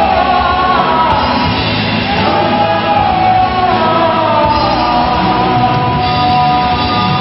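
Live band with electric guitars and drums playing under singing, with long held sung notes that slide down in pitch about two seconds in and again about four to five seconds in.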